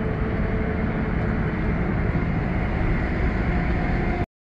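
Steady rumbling noise of wind on a chest-mounted action camera's microphone mixed with road traffic, cutting off suddenly near the end.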